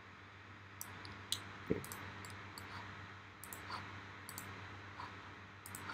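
Faint, irregular clicks of a computer mouse and keyboard while working in a 3D program, about a dozen sharp clicks over a low steady hum. There is one duller knock about a second and a half in.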